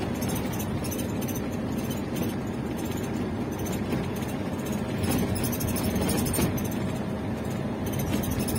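Minibus driving at speed on a highway, heard from inside the cabin: a steady mix of engine and road noise.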